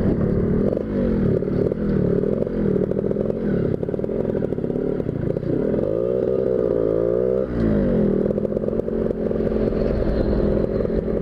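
Tuned motorcycle engine being ridden hard, its pitch rising and falling with the throttle. The pitch drops sharply about seven seconds in, then holds higher and steadier.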